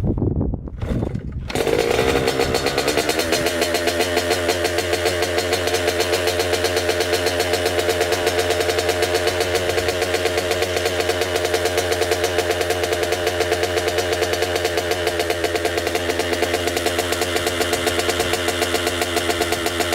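Yamaha YZ85's 85cc two-stroke single-cylinder engine, on its stock exhaust, running just after a cold start with the choke on in near-freezing cold. It fires unevenly for about a second and a half, then settles into a steady, rapid idle.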